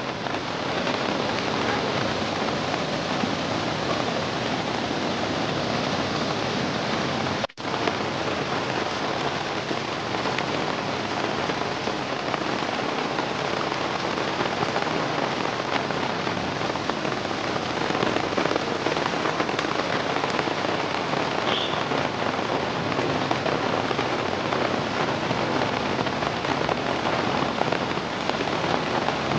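Steady rush of heavy rain and muddy floodwater running over a road, with a brief dropout about seven and a half seconds in.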